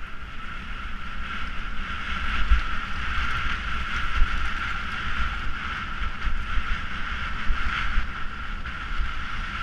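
Riding noise of a mountain bike descending a dirt road: wind buffeting the microphone in gusty rumbles, over a steady high hiss from the moving bike.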